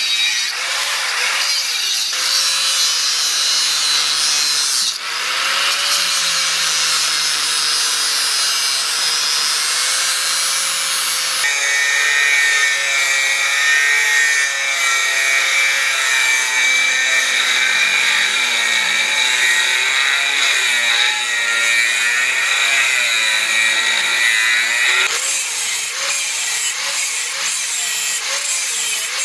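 A power tool grinding steel, a continuous abrasive rasp that changes abruptly a few times as segments are cut together, with a steady high whine through the middle stretch.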